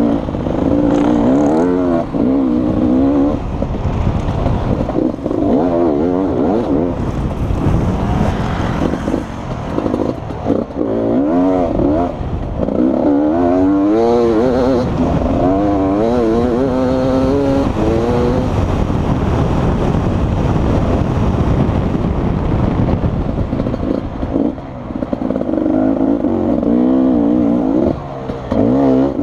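Beta RR 300 two-stroke enduro motorcycle engine revving hard up and down as it is ridden through the gears over a dirt track. It is heard from the rider's helmet, with wind and rumble on the microphone.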